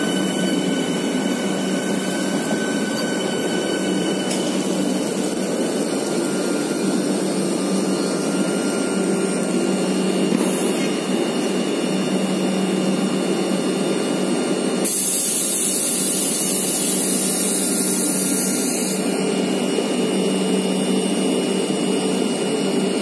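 Train 18 electric trainset's onboard equipment running with a steady hum and whir while the train stands. A loud high hiss comes in about fifteen seconds in and stops about four seconds later.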